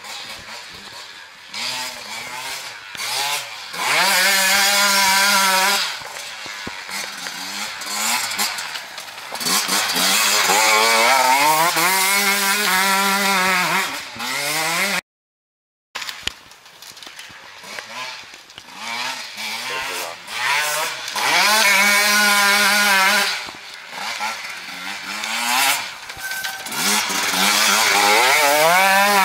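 Sherco 125 enduro dirt bike's single-cylinder engine revving hard as it rides past several times, its pitch climbing and dropping with throttle and gear changes in four loud surges. The sound cuts out completely for about a second halfway through.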